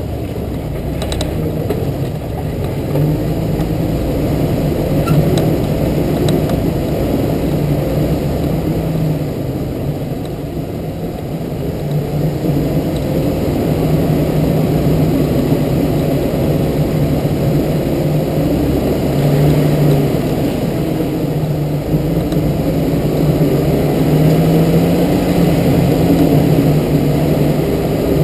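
Jeep TJ engine running steadily as it drives slowly along a dirt trail, the engine note wavering slightly as the throttle changes.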